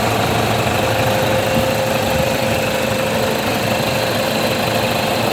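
Toyota Fortuner engine idling steadily with a thin steady whine over it: it is running again after its no-start fault was fixed.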